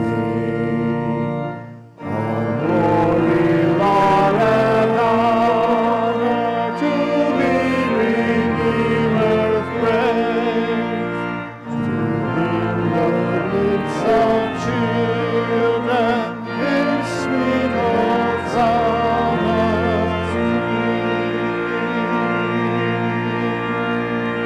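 Hymn sung to loud church organ accompaniment, the organ played full with all the stops out, with brief breaks between phrases, closing on a long held chord.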